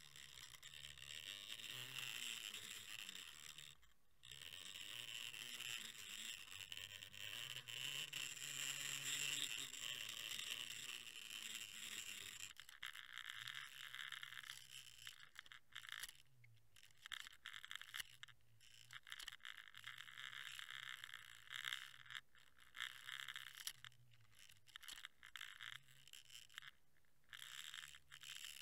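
Faint underwater noise picked up by a camera housing hanging on a fishing line: a steady hiss with a low hum, breaking up into short gaps over the second half.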